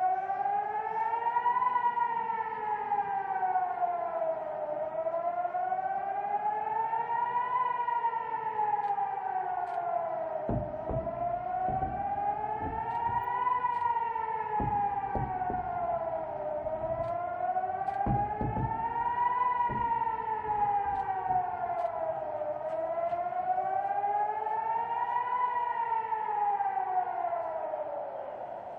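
Civil defence siren wailing, rising and falling in pitch about every six seconds: a rocket-attack warning. A few low thumps come in the middle.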